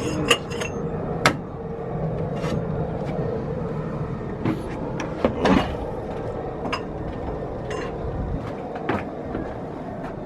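Scattered metal clinks and knocks of hand tools and engine parts being handled on a DT466E diesel engine under teardown, over a steady mechanical hum.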